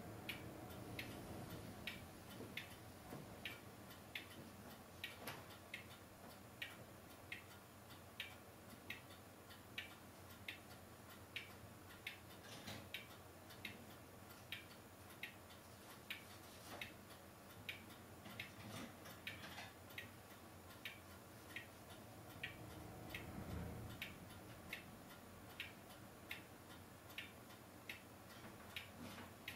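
Faint, evenly spaced ticking, a little under two ticks a second, over low background hiss.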